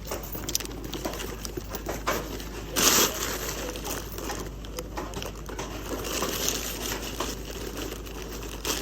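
Rigging chains and hooks clinking, with the rustle of a lifting bag being handled as a rigger hooks it up for a crane lift, and a louder rustling burst about three seconds in.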